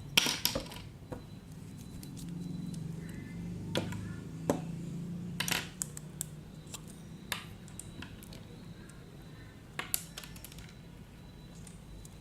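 Scattered light clicks and taps of slime-making containers and utensils being handled on a table, over a faint low hum.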